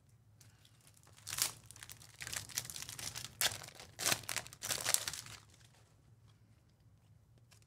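A trading-card pack wrapper crinkling and tearing as it is ripped open and handled, in a run of rustles lasting about four seconds.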